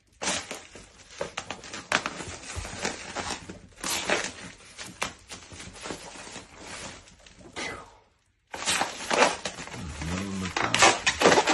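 Plastic air-pillow packing cushions crinkling and crackling in bursts as a Boston terrier snaps at and grabs them. The sound cuts out briefly about eight seconds in, and a short low vocal sound comes near the end.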